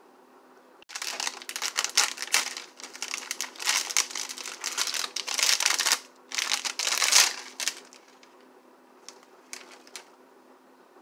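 Plastic snack wrapper crinkling and tearing as it is opened and pulled off a packaged breaded hot dog on a stick. The crinkling comes in a long stretch starting about a second in, then a shorter one after a brief pause, followed by a few light ticks near the end.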